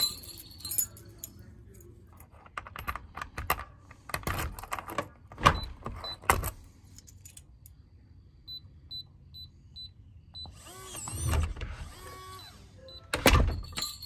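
Veise KS02B electronic keypad deadbolt: a run of clicks and knocks, then about seven short high beeps as the keypad buttons are pressed one after another. The lock then gives a brief burst of electronic sound, and a loud clunk follows near the end.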